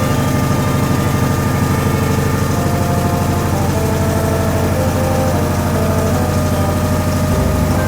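Toshiba ZABOON top-loading washing machine running mid-cycle: a steady low motor hum with faint short tones drifting in pitch above it.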